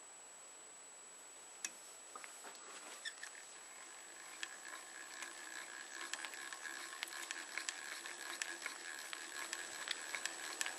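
Hand drill boring out a rivet: a scratchy grinding with many small clicks and a faint steady whine, getting denser and slightly louder from about four seconds in.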